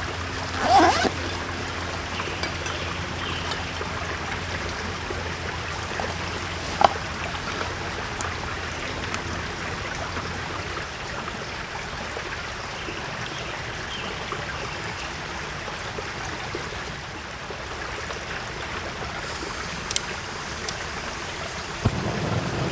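Steady rush of a nearby stream's running water, with a few sharp clicks and knocks from camping gear being handled on the ground; the loudest knock comes about a second in.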